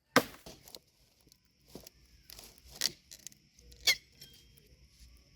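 A few sharp chopping strikes on wood, the loudest just after the start, with two more about three and four seconds in.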